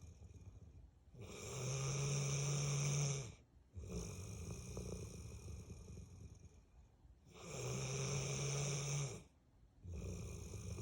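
Bullmastiff snoring: two long, loud snores with a steady low buzz, about six seconds apart, with quieter breathing between them.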